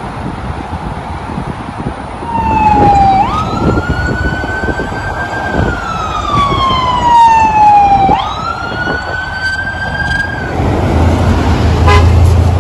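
A siren wailing, its pitch jumping up quickly and then sliding slowly down, twice, before it cuts off about ten seconds in, over a steady rush of wind and road noise.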